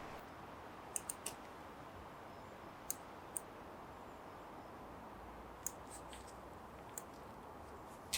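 Faint, scattered sharp clicks, three in quick succession about a second in and single ones later, over a steady faint hiss.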